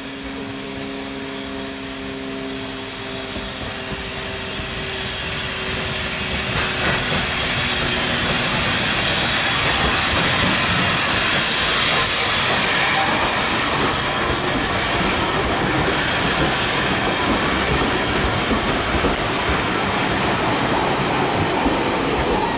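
Steam tank engine, the Hudswell Clarke 0-6-0T 'Gothenburg', running in and passing close by, growing louder with a steam hiss loudest about halfway through, then its train of coaches rolling past with a steady rumble and rattle of wheels on the rails.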